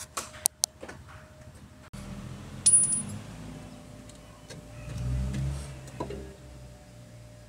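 Metal clinking: a few sharp clicks in the first second, then a bright ringing clink of metal on metal about two and a half seconds in, the loudest sound. A low rumble runs under it from about two seconds in, swelling about five seconds in.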